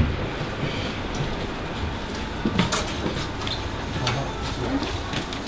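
A door's lever latch clicks as the door is pushed open, then a steady low rumble with light rattles and a few scattered clicks.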